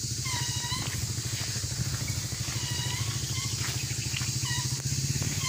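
A small engine, motorcycle-like, running steadily with a fast, even pulse, with a few short high-pitched calls over it.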